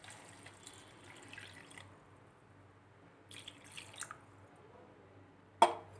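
Water poured from a glass into a steel kadai of masala-coated mutton pieces, splashing and dripping for about two seconds, with a few more faint splashes later. A single sharp knock near the end is the loudest sound.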